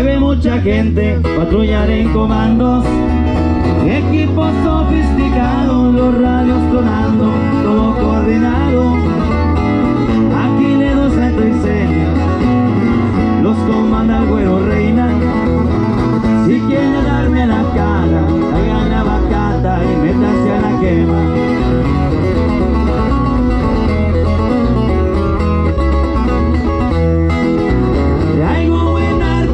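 A band playing a song, with guitar and a singing voice over a steady, strong bass beat.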